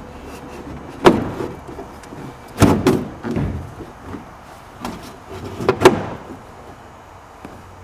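A wooden canoe thwart knocking and bumping against the canoe's hull and gunwales as it is fitted into place: several sharp knocks and thumps over about six seconds, the loudest about a second in, near three seconds and near six seconds.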